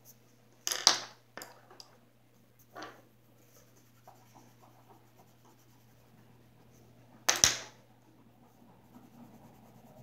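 Coloured pencils being swapped at a wooden table: two sharp clatters, about a second in and again about seven seconds in, with a few lighter knocks after the first, as pencils are put down and picked up, and faint scratching of pencil on paper between.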